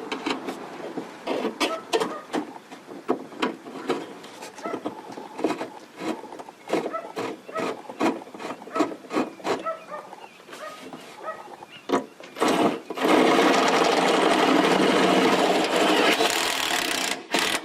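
A series of light clicks and knocks as the gutter screw and bushing are handled and set, then a power drill runs steadily for about four seconds, driving the long gutter screw through its bushing into the fascia.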